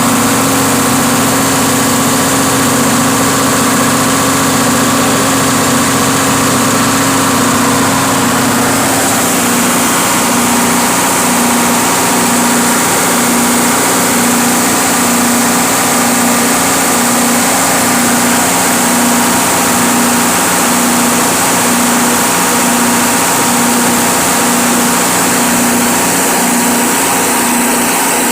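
A Cummins 6BTA5.9 turbocharged six-cylinder diesel engine running steadily, with a regular throb about once a second. Its lower note drops away about a third of the way in.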